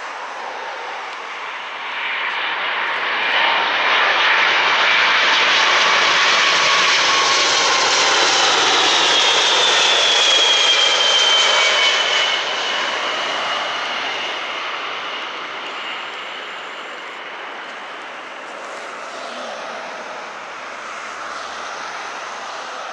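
Boeing 747-400 with four Rolls-Royce RB211 turbofans flying low over on landing approach. The engine noise swells to its loudest, a high whine drops in pitch as the jet passes, and then it fades away.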